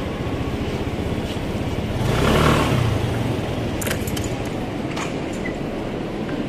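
Motor scooter riding slowly, its engine running under a steady noise that swells louder for about a second around two seconds in, with a few sharp clicks later.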